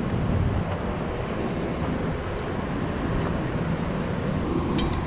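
Steady rushing roar of water pouring over a river dam, even and unbroken, with a quick rattle of clicks near the end.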